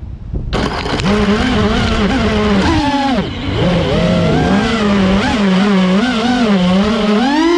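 FPV freestyle quadcopter's brushless motors whining, their pitch wavering constantly with the throttle. The whine starts abruptly about half a second in, drops sharply as the throttle is chopped about three seconds in, then climbs back and rises again near the end.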